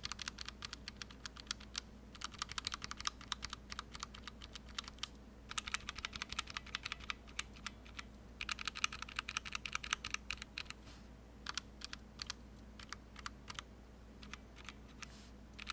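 Fast typing on a KBD67mkii custom mechanical keyboard with a brass plate, linear switches and GMK keycaps. Dense runs of key clacks are broken by short pauses.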